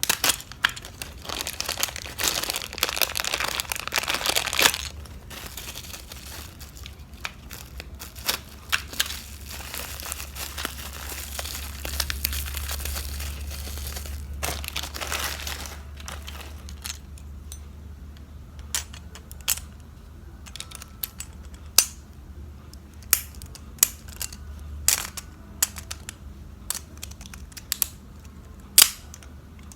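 Plastic packaging crinkling and tearing as a Beyblade toy is unboxed. After about sixteen seconds the crinkling stops and gives way to scattered sharp clicks and taps of small hard objects being handled.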